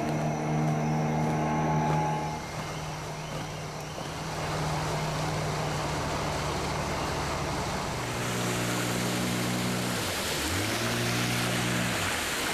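Boat motor running steadily while water rushes past. About ten seconds in, the engine note dips and then picks back up.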